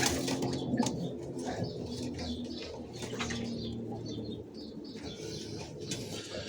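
Pigeons cooing, a low steady murmur of calls that rises and falls, with scattered light clicks and knocks.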